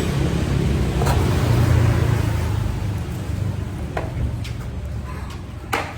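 Engine running with a low rumble that grows quieter over the second half, with a few sharp clicks.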